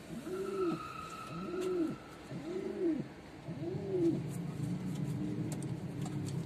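Domestic pigeon cooing: four coos about a second apart, each rising and falling in pitch.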